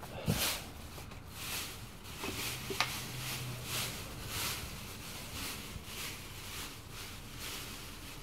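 Plastic trash bags rustling and crinkling in a run of short bursts, about two a second, as a pole prods and drags at a bag of dumpster rubbish, with a sharp tap or knock a little under three seconds in.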